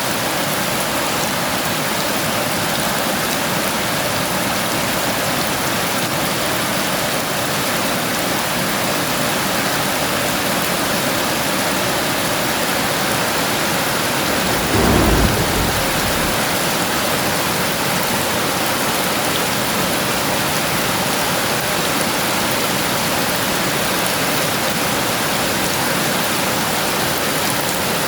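Heavy rain falling steadily, an even hiss, with one short, deep clap of thunder about halfway through.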